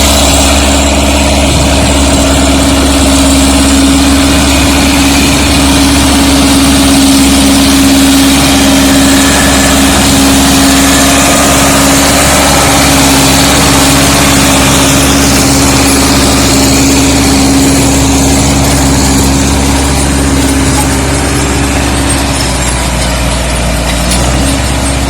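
Zetor tractor engine running steadily under load while pulling a cultivator working deep, a loud, even drone that eases slightly near the end.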